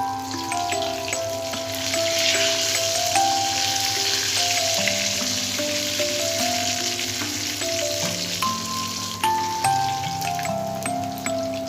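Katla fish pieces frying in hot oil: a steady sizzle, loudest in the middle, with a few small clicks. A simple background melody plays underneath.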